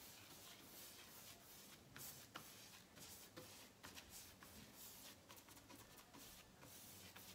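Faint swishing of a paintbrush laying off wet paint lightly on a kitchen cabinet panel, heard as a string of short brush strokes.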